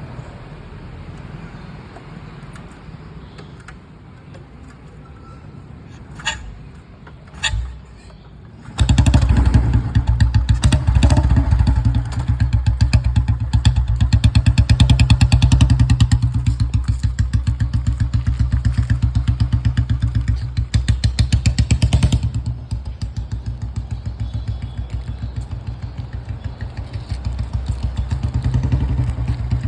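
Old Royal Enfield Bullet single-cylinder motorcycle engine being kick-started. Two sharp knocks come from the kicks, then the engine fires about nine seconds in and runs with an even thump. It is revved a few times, then settles to a quieter steady idle.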